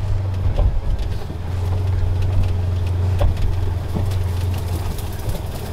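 Off-road side-by-side vehicle's engine running with a steady low drone, with scattered short clicks and knocks over it.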